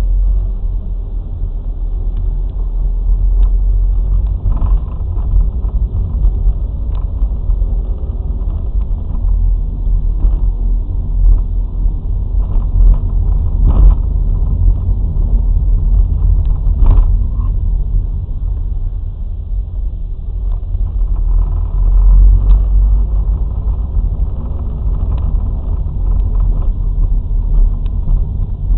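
A car on the move, heard from inside the cabin: a steady low rumble of engine and tyre noise, broken by a few short knocks.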